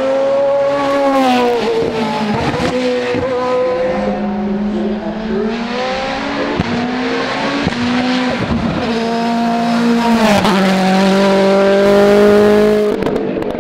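Hill-climb race car engines under hard acceleration. The engine pitch climbs, then drops sharply at each gear change, several times over.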